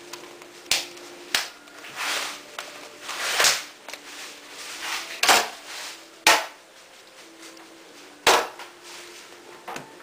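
Plastic housing of a Remington Supersonic hair dryer being pried apart by hand. About five sharp snaps of the plastic letting go, with creaking and scraping of plastic in between.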